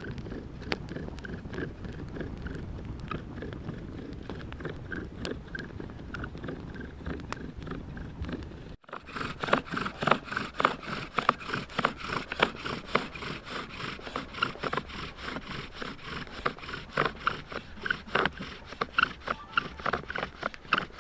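Wooden bow drill working: the spindle is sawn back and forth in the hearth board, making a rhythmic scraping squeak with each stroke of the bow as friction builds toward an ember. After a cut about nine seconds in, the strokes are louder and sharper.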